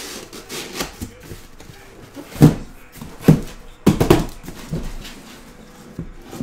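Cardboard shipping case being opened and handled: its flaps are pulled back and the box is knocked about, giving several dull thumps and knocks, the loudest about two and a half and three seconds in, with a quick cluster just after.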